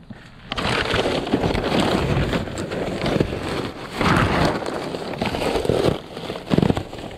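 Crinkling plastic wrap and shifting cardboard as a gloved hand rummages through dumpster trash, starting about half a second in with uneven louder rustles.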